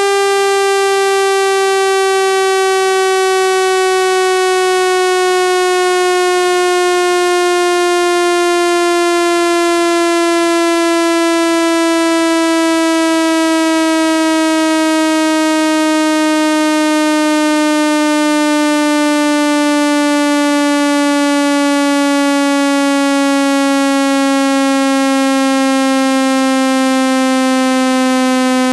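Synthetic speaker-cleaning tone: a loud, buzzy electronic tone rich in overtones, gliding slowly and steadily down in pitch over a faint hiss. It is a sound made to be played at full volume to shake water and dust out of a phone speaker.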